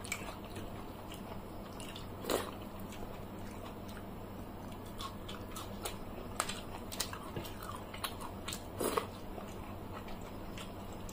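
Close-up eating sounds: chewing and biting of fried fish and soaked rice eaten by hand, with many small wet clicks and two louder crunches, about two seconds in and near nine seconds.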